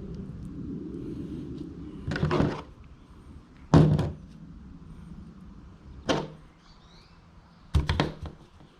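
Four separate clunks about two seconds apart, the loudest about four seconds in, typical of tools or bike parts being picked up and set down during a bottom bracket install. A low rumble dies away in the first two seconds.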